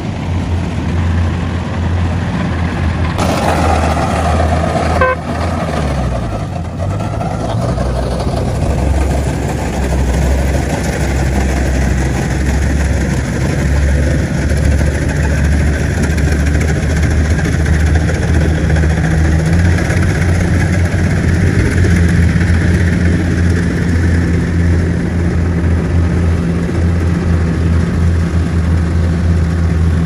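Kubota combine harvester's diesel engine running steadily under harvesting load, its speed dipping and picking back up about six to eight seconds in.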